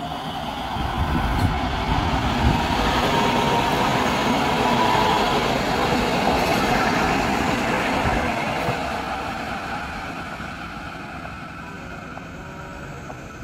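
Cologne Stadtbahn light-rail train passing close by, its wheels rumbling on the rails. The sound swells over the first couple of seconds, stays loud while the cars go past, then fades over the last few seconds as the train moves away.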